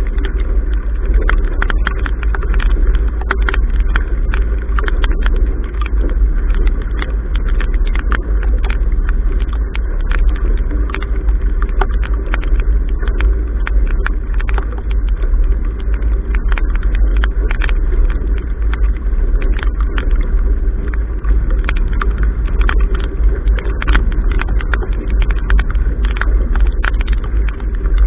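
Wind buffeting the microphone of a bow-mounted camera on a sailboat, with the rush of choppy water along the hull and many scattered sharp ticks as rain and spray strike the camera. Steady and loud, with no break.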